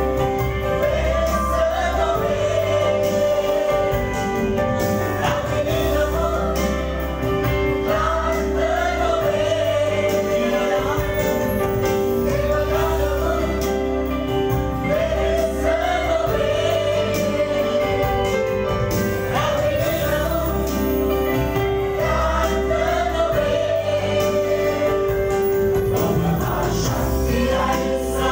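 A worship team singing a Sinhala worship song together, men's and women's voices in unison, over instrumental backing with acoustic guitar and sustained low bass notes.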